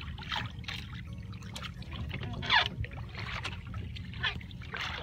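Water sloshing and splashing against the side of a small boat, in short swishes with one louder splash about halfway through, over a steady low rumble.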